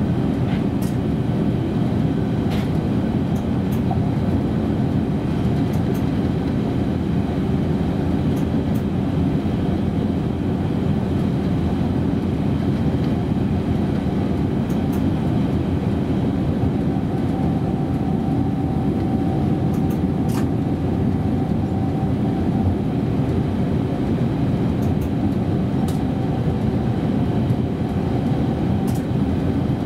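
Berlin S-Bahn electric train running along the track, heard from the driver's cab: a steady rumble of wheels and running gear with occasional clicks. A faint steady whine joins a little over halfway through.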